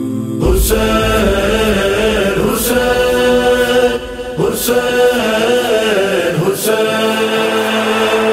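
Noha intro: voices chanting together in long held notes, entering about half a second in, with a sharp beat about every two seconds.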